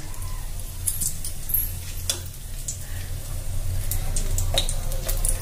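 Whole black peppercorns and green cardamom pods sizzling in hot oil in a metal kadai, with a spatula stirring and clicking against the pan several times. A steady low hum runs underneath.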